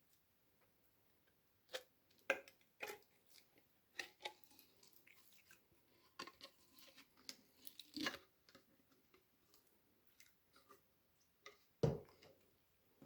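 Slime being squished and worked: irregular sticky clicks, pops and small squelches, with a louder squelch near the end.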